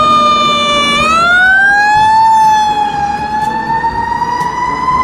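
Fire engine siren wailing, its pitch drifting slightly down, then climbing over about a second, dipping briefly, and slowly rising again.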